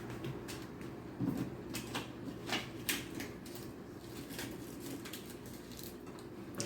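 Scattered light clicks and taps of small objects being handled, over a faint steady hum of room tone.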